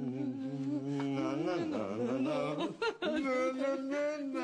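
Background music: a song with a singing voice holding long, wavering notes over a low held tone.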